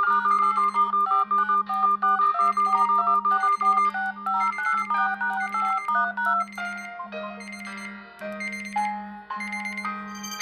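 Smartphone ringtone: an electronic melody of short, clean notes over a low note repeating a little more than once a second. About seven seconds in, the tune changes to a sparser, lower passage.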